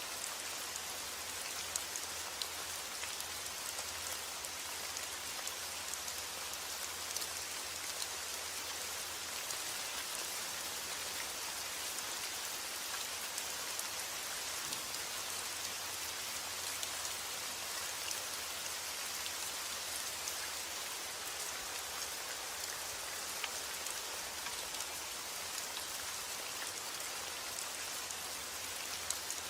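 Steady rain falling, an even hiss with many small drop ticks scattered through it, and a faint low hum underneath.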